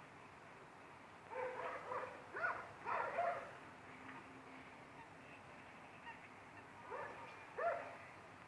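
Short animal calls in two bursts: a run of several calls from about a second and a half to three and a half seconds in, then two more near the end.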